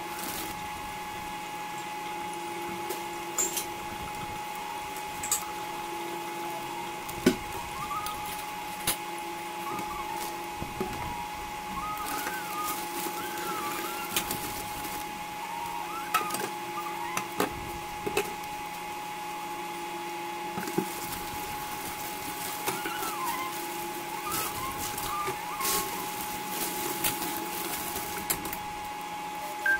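Pancake batter cooking in butter in a stainless steel pan on a portable induction cooktop. The cooktop gives a steady whine and a lower hum that comes and goes every few seconds, over scattered pops and crackles of sizzling butter.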